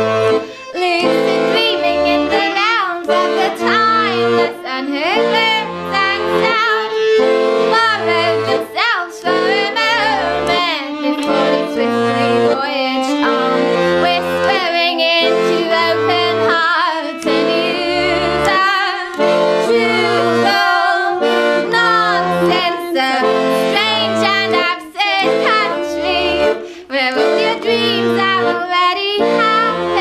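Piano accordion and violin playing an instrumental passage together: the accordion keeps a steady bass-and-chord pulse while the violin plays a wavering, sliding melody above it.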